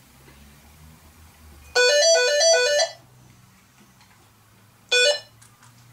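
Phone ringtone: a quick electronic melody of alternating high and low notes lasting about a second, then starting again briefly near the end.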